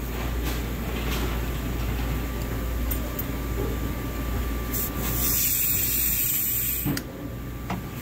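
Refrigerant gas hissing out of a freezer's snapped-off copper line where the pinch-off tool is not sealing fully. A loud, sharp hiss starts about five seconds in and cuts off suddenly about two seconds later as the pinch-off tool is tightened down.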